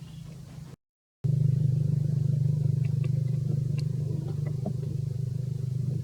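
A steady low engine drone, like a motor vehicle running nearby. It cuts out completely for a moment about a second in, then comes back louder, with a few faint ticks over it.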